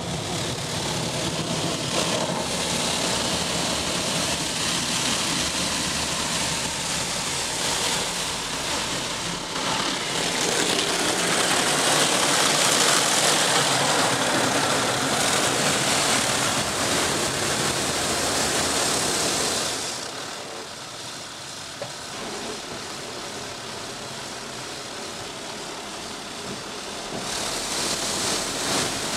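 Rotating polyethylene brushes of an automatic car wash scrubbing over the car, heard from inside the cabin: a steady rushing swish of bristles and water. It grows louder and brighter in the middle, turns quieter about twenty seconds in, and picks up again near the end.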